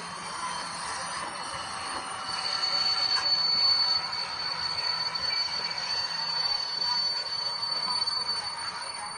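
HO-scale model train running on the layout, with a steady high-pitched whine that sets in about two seconds in; it is loudest a few seconds in.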